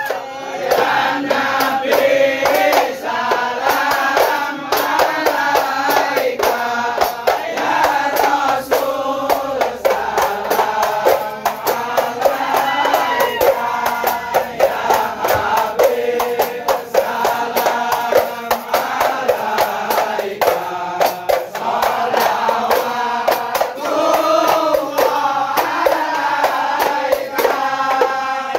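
Men's group singing an ISHARI sholawat chant in unison, with sharp hand claps and terbang frame-drum strokes all through.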